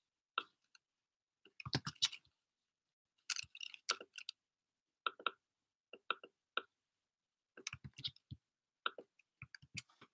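Computer keyboard and mouse clicks in short, irregular clusters of sharp taps, with dead silence between the clusters.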